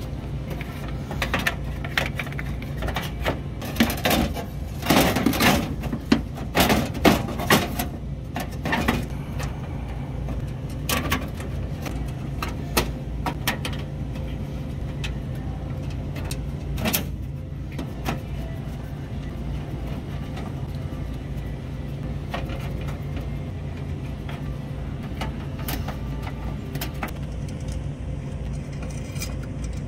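Metal clicks and knocks as an evaporator fan motor and its metal fan blade are handled and fitted into the fan shroud of a refrigerated case. They come thick over the first nine seconds, then only now and then. A steady low hum runs underneath.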